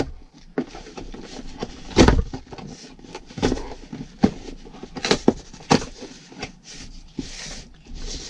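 Packing tape being peeled and ripped off a cardboard shipping box by hand, and the cardboard flaps handled: a string of irregular scratchy rips and scrapes, the loudest about two seconds in.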